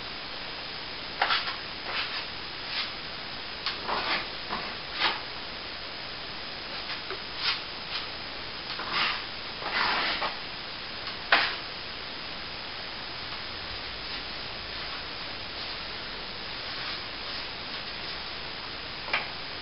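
Irregular short scraping strokes of a tool working a plaster wall, over a steady hiss. The strokes come thickly in the first half, the sharpest about eleven seconds in, then thin out to one near the end.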